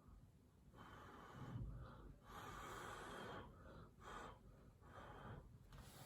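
Faint short gusts of rushing air, four or five of them about a second long each, with near silence between.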